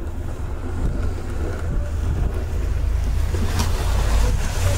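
Wind buffeting the microphone in a steady low rumble, with a snow shovel scraping and pushing snow along a sidewalk and one louder scrape late on.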